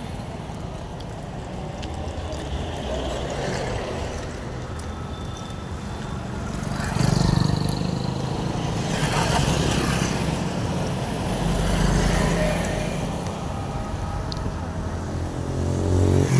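Road traffic passing close by: motorcycle and truck engines and tyre noise, swelling as each vehicle goes past, most clearly about seven, ten and twelve seconds in.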